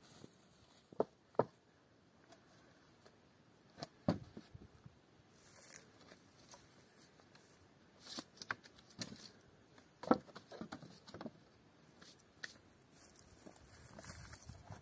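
Scattered light knocks and clicks at uneven intervals with quiet between them, the sharpest about a second in, another about ten seconds in.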